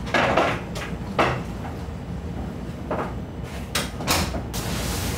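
A wooden room door and its latch being handled and shut: a handful of separate clicks and knocks, with a small cluster of them about four seconds in.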